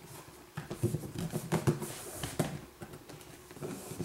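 Hands pressing and patting a vinyl floor plank into place, a string of soft, irregular taps and clicks.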